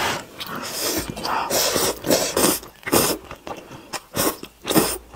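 Close-miked noodle slurping: a run of short, hissing sucks, about two a second, as strands of spicy instant noodles are drawn into the mouth, with chewing between.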